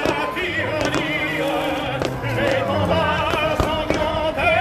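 Music with a singing voice held on long, wavering notes in an operatic style over a low bass line, broken by a few sharp thumps.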